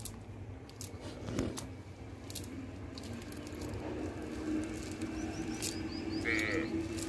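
Scattered small clicks and rustles of a cast net and fish being handled, with a few high bird chirps. A steady low hum comes in about halfway through.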